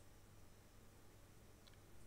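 Near silence: room tone with a faint steady low hum and one tiny click near the end.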